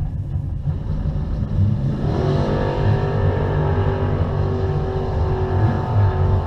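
Car engine idling with a low rumble, heard from inside the car. About two seconds in, an engine revs up and holds a steady high note.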